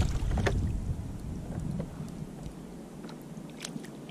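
A hooked tailor thrashing and splashing at the surface beside a kayak, with a low rumble that fades over the first couple of seconds. A few faint ticks follow near the end.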